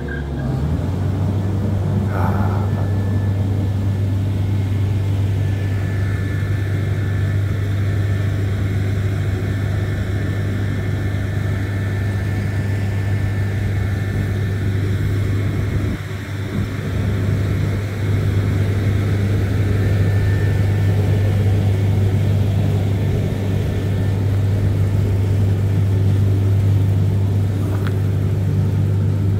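Old rice mill's machinery running, driven by flat belts from a stationary engine: a loud, steady, deep machine hum that comes up right at the start and dips briefly a little past halfway before settling again.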